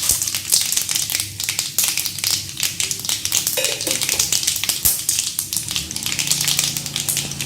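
Mustard seeds and chana dal frying in hot oil in a kadai, with a dense, steady crackling and sizzling.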